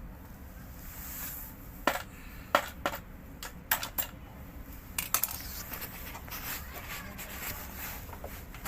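A series of sharp clicks and light knocks, several in quick succession between about two and five seconds in, over a low steady hum, like small hard parts or tools being handled during repair work.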